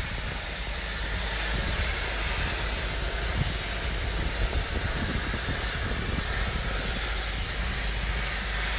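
A steady, even hiss with a low rumble underneath.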